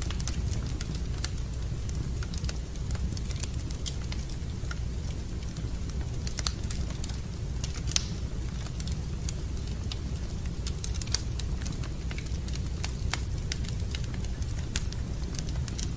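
Wood fire burning in a fireplace: irregular crackles and sharp pops over a steady low rumble, with a louder pop about eight seconds in and another about eleven seconds in.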